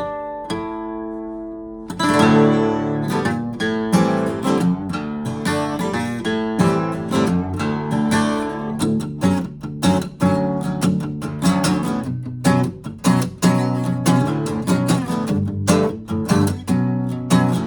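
Gibson J-45 round-shoulder acoustic guitar being played. A few notes ring out and fade over the first two seconds, then rapid strummed chords start about two seconds in.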